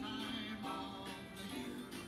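Background music with a melody of changing notes.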